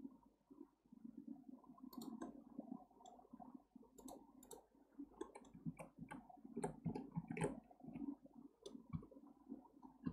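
Faint, irregular clicking of computer keyboard keys and mouse buttons, many separate clicks from about two seconds in.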